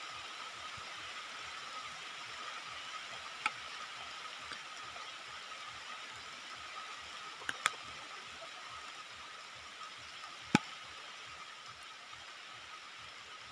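Steady outdoor hiss with a thin, constant high tone running through it, broken by a few sharp clicks or snaps, two of them close together about halfway through and the loudest near the end.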